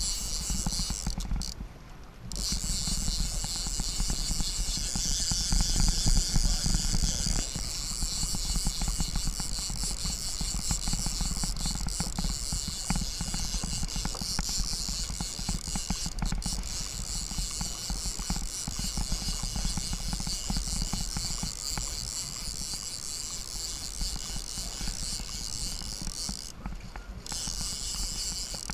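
Conventional saltwater fishing reel worked against a hooked king mackerel, giving a continuous high whir over a steady low rumble. The whir drops out briefly about two seconds in and again near the end.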